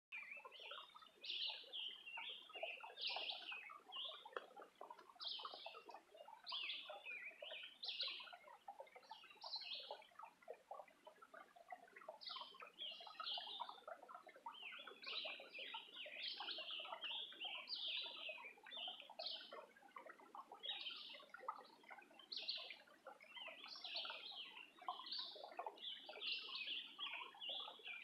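A chorus of songbirds singing in woodland: several birds at once, with short high chirping phrases repeated every second or so over softer, lower twittering.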